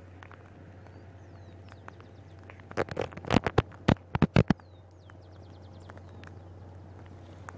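Wood campfire crackling, with a quick run of about eight sharp, loud pops around the middle, over a steady low hum. Small birds chirp faintly in the background.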